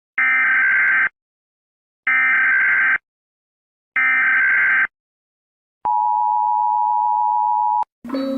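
Emergency Alert System alert: three bursts of SAME digital header data, each about a second long with a second's gap, a harsh buzzing screech, followed by the EAS two-tone attention signal, a steady dual tone held about two seconds.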